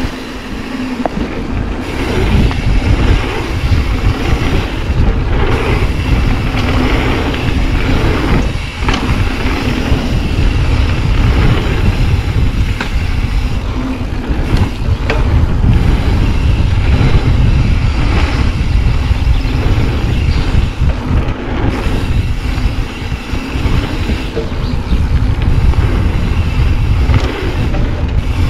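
Mountain bike riding down a dirt flow trail, heard from an action camera on the bike or rider: wind on the microphone and tyre rumble, broken by frequent clicks and rattles from bumps.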